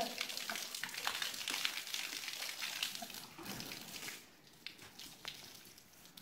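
Garden hose spraying water onto a horse's wet coat: a steady hiss with spattering drips, fading after about four seconds.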